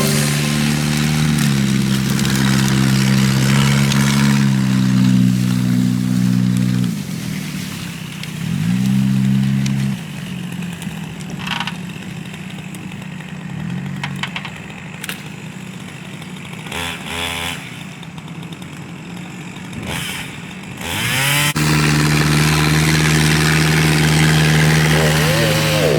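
Gasoline engine running hard at high revs. It drops away about seven seconds in and revs back up, runs quieter for about ten seconds with brief revs, then climbs back to a steady high rev about twenty-one seconds in.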